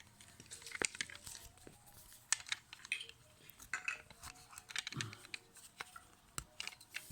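Scattered clicks and light clatter of a toy car being handled and pried open with a screwdriver.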